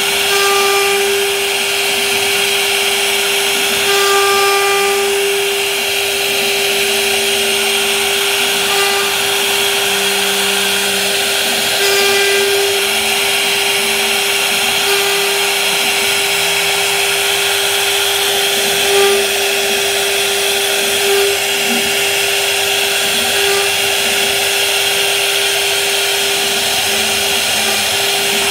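CNC router spindle running at a steady whine while its bit routes curving grooves into a wooden panel, with the hiss of the cut and small shifts in pitch as the bit moves along the pattern.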